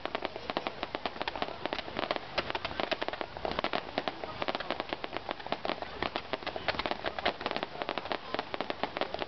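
Low-level fireworks barrage crackling: a dense, continuous run of small sharp pops, many each second.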